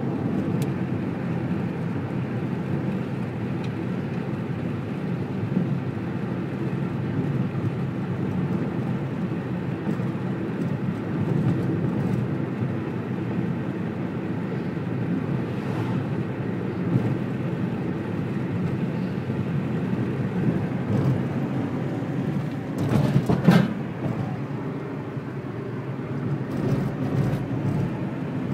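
Steady road and engine noise of a moving car, heard from inside its cabin, with a brief louder noise about three-quarters of the way through.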